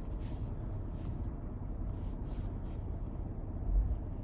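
Steady low rumble inside the cabin of a running Land Rover Defender 110, with a soft low thump shortly before the end.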